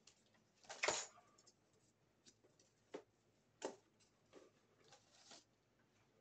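Handling noises as items are set into a gift basket: soft rustling and a few light clicks and taps, the loudest about a second in, then four smaller ones spread over the next few seconds.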